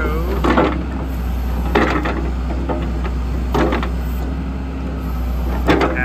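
John Deere 310SJ backhoe's diesel engine running steadily while the hoe and Wain Roy rotator move, with four short clunks spaced a second or two apart.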